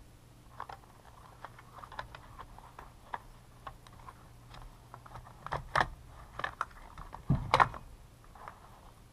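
Small clicks and clatter of hands and tools working on the plastic and metal parts of a Husqvarna T435 top-handle chainsaw being taken apart, with a few louder knocks in the second half.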